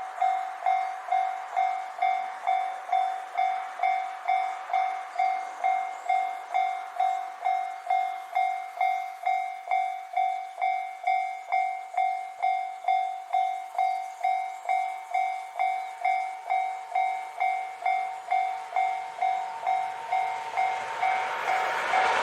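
Japanese railway level-crossing warning bell ringing in a steady, even rhythm of about two strikes a second. In the last couple of seconds the noise of the approaching freight train rises under it.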